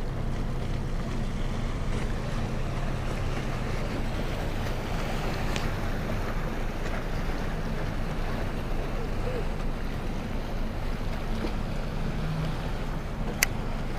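Steady wash of sea water against a rock jetty with wind on the microphone, under a faint low steady hum. One sharp click near the end.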